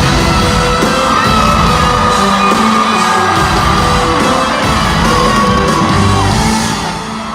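Loud live pop music with singing, over a crowd of fans yelling and whooping, with a reverberant hall sound.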